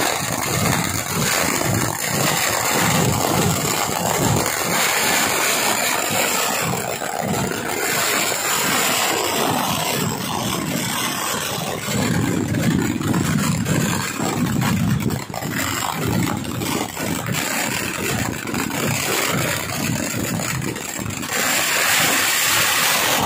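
Kerala temple-festival fireworks (vedikkettu) going off in a dense, unbroken barrage of shell bursts and crackling bangs. Heavier low booms come about halfway through.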